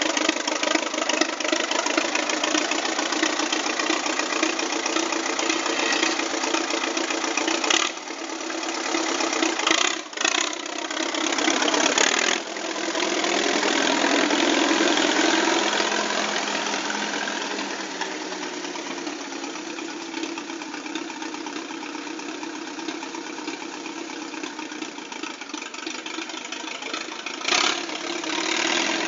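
Freshly restored 1951 Case D tractor's four-cylinder engine running. After a few abrupt breaks in the sound, it swells louder about twelve seconds in as the tractor moves off, then gradually fades as it drives away.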